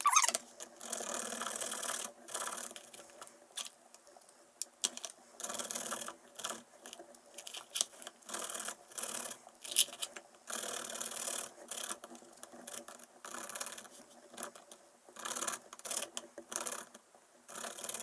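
Garlic cloves being grated by hand: a run of short scraping strokes with brief pauses between.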